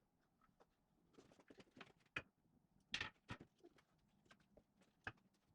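Faint, scattered clicks and light knocks at uneven intervals, the loudest about three seconds in.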